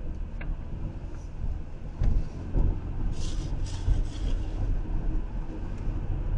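Inside a moving minivan's cabin: steady low road and engine rumble with tyre noise. There is a click just after the start and a few short hissing bursts around three to four seconds in.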